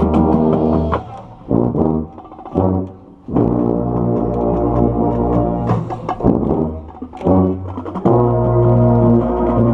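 Sousaphone played close up, with the brass of a marching band around it: long held low notes broken by a few short ones, ending on a long sustained note from about eight seconds in.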